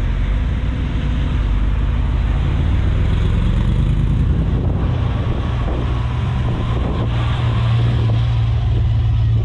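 A car engine running close by: a steady low rumble, with a low hum in it that grows stronger about halfway through.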